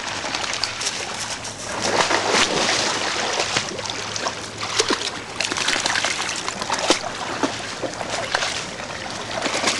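Creek water running and splashing, with scattered short crackles and clicks through it. The water noise grows louder about two seconds in.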